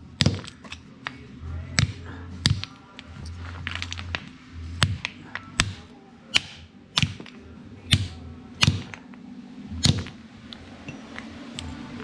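Repeated sharp knocks, a strike about every second, over a steady low hum.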